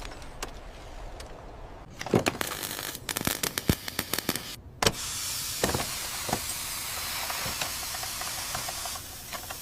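A low hum with a few scattered clicks, then about two seconds of rapid clicking and knocking, like a mechanical clatter. After a short break comes a steady hiss lasting several seconds.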